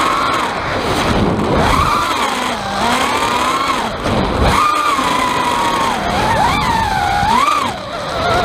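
FPV quadcopter's EMAX 2205 2300kv brushless motors and 5-inch props whining, the pitch rising and falling again and again with throttle, over a rough rattling noise. The owner suspects the rattle is a loose mic inside the onboard Foxeer Legend camera, or else cheap motors.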